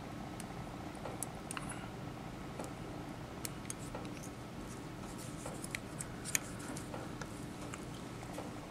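Light, scattered clicks and ticks of a thin metal fly-tying tool and a small plastic tube fly being handled, over a steady low hum, with one sharper click about six seconds in.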